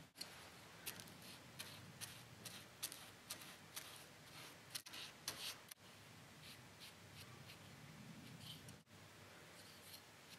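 Quiet, irregular light clicks and taps of small hand work, with the sound dropping out suddenly three times.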